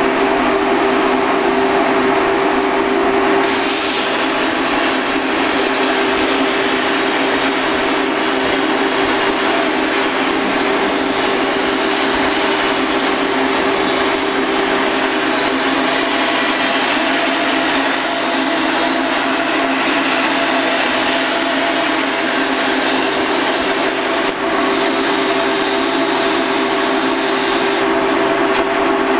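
Hypertherm plasma cutter on a PlasmaCam CNC table cutting 3/16-inch steel plate. The arc starts with a loud, bright hiss a few seconds in and cuts off with a brief dip some twenty seconds later, after which a lighter air hiss goes on. Under it runs the steady hum of the shop exhaust fan, with a clear fixed tone.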